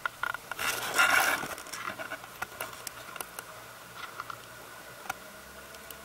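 Suzuki 300 hp V6 four-stroke outboard on a ferry boat idling, a faint steady hum under scattered small ticks and patters. About a second in, a brief loud rustling burst covers it.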